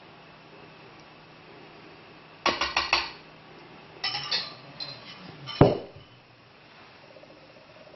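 Wire whisk clinking against a mixing bowl in two short rattles of quick clicks as egg-and-buttermilk mixture is tipped out, followed by a few lighter taps and then a single sharp knock, the loudest sound, a little past halfway.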